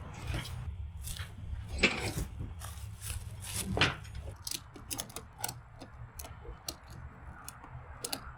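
Hand work on a fiberglass boat bow: a couple of louder knocks, then a run of short, sharp clicks and taps, over a low steady hum.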